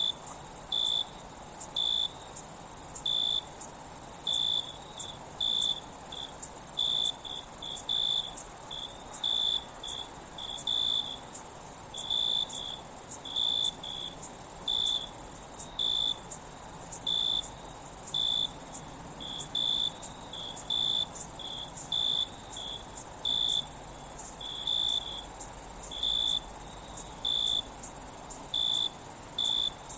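Night insect chorus: a steady high-pitched trill with a louder cricket-like chirp repeating roughly twice a second, unevenly spaced.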